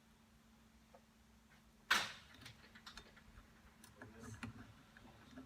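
A sharp knock about two seconds in, followed by scattered light clicks and small rattles, like hard objects being handled.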